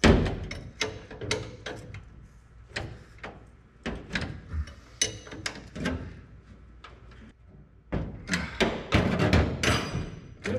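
Hand wrenches clicking and clanking against a three-speed floor shifter's bolts and linkage as they are tightened to take out play in the worn shifter. The clatter is a run of short sharp knocks that gets busier near the end.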